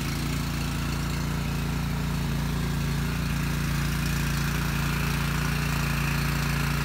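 Small gasoline engine of a portable water pump running steadily at constant speed.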